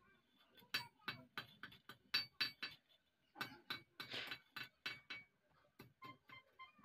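Faint, irregular light metal clinks and taps, some with a brief ring, coming in a loose run of about fifteen over four seconds and then stopping.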